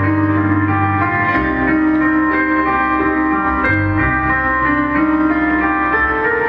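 Live band playing an instrumental passage: held chords over a bass line that changes about every couple of seconds, with no singing.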